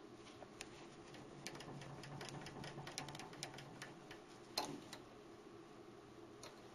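Faint scattered clicks and light metal knocks as a lathe's boring tool post is handled and set, with one sharper knock about four and a half seconds in, over a faint steady hum.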